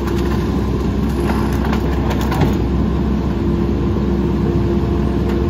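Mack LE rear-loader garbage truck's engine running steadily, with a constant low hum, while branches are fed into the hopper; a few faint snaps come in the first couple of seconds.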